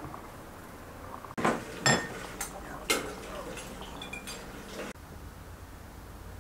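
Clinks and knocks of kitchen dishware as peeled potatoes go into a bowl: sharp knocks about a second and a half, two and three seconds in, then lighter clicks and a brief ringing clink. It cuts off suddenly near five seconds.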